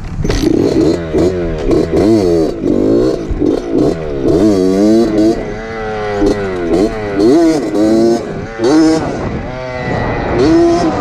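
Suzuki RM60 two-stroke mini dirt bike engine running and revving up and down again and again, each throttle blip a quick rise and fall in pitch.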